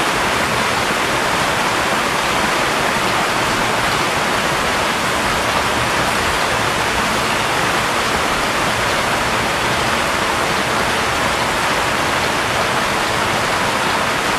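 Steady rain on the fabric roof of a canopy tent: an even, unbroken hiss.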